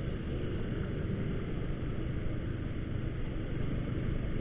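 Motorcycle running at a steady low speed with a low engine hum under wind and road noise on the rider's camera microphone.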